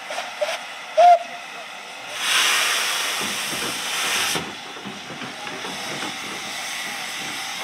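Barton Wright 0-6-0 saddle tank steam locomotive blowing steam from its cylinders as it moves off slowly. A loud hiss starts about two seconds in and lasts about two seconds, then drops to a softer steady hiss. A short, loud high note sounds about a second in.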